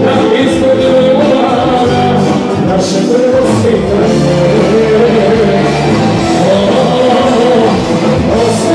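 Live band playing a Serbian pop-folk medley, loud and amplified, with a male singer carrying the melody into a microphone over keyboard accompaniment.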